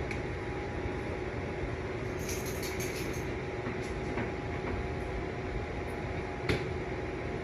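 Steady room hum with two faint tones under it, and a few light clicks of giant wooden Jenga blocks being tapped and pushed, the sharpest about six and a half seconds in.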